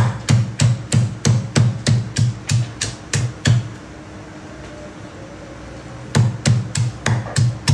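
Stone pestle pounding red chillies and shallots in a stone mortar for a sambal paste: steady deep thuds about three a second. The pounding pauses for about two and a half seconds mid-way, then starts again.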